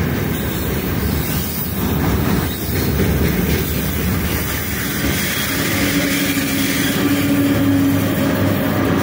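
Freight train wagons passing close by, then the four-section 4ES5K 'Ermak' AC electric locomotive pushing at the tail of the train goes by. A steady electric hum comes in about halfway through as the locomotive draws level.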